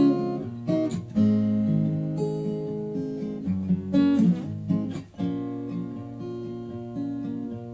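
Acoustic guitar playing an instrumental break: strummed chords, then a quieter, evenly repeating picked pattern from about five seconds in.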